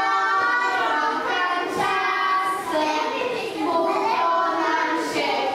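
Young children's voices singing a song together, with long held notes that rise and fall.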